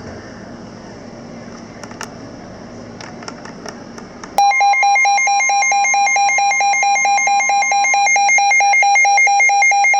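Low radio hiss with a few faint clicks. About four seconds in, a loud, shrill Emergency Alert System attention tone cuts in suddenly and holds steady, announcing a new warning broadcast.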